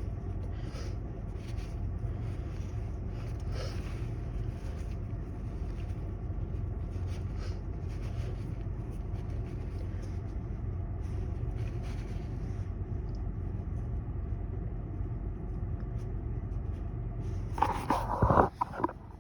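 Sniffling and short breaths through a nose stuffed up by a head cold while a sneeze is being induced, then near the end one harsh stifled sneeze, a brief loud voiced burst that cuts off sharply. A steady low rumble runs underneath.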